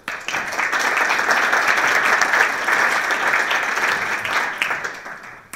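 Audience applauding, starting all at once and fading out near the end.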